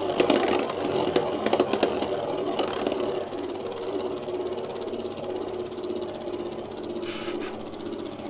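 Metal-wheeled Beyblade tops spinning in a plastic stadium: a dense clatter of rattles and scrapes for the first three seconds, settling into a steady whir that grows quieter. A short hiss comes about seven seconds in.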